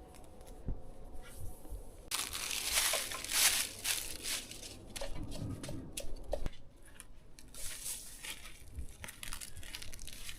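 Rustling and crunching as a garden hose is gathered up and moved, loudest from about two seconds in until a little after six seconds, then a few quieter clicks.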